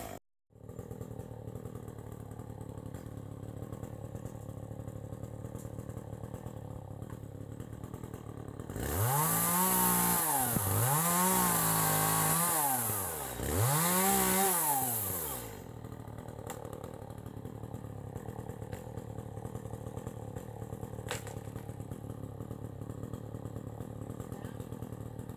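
Two-stroke chainsaw idling, then revved hard three times while cutting into a tree trunk, its pitch rising and sagging with each cut, then dropping back to a steady idle.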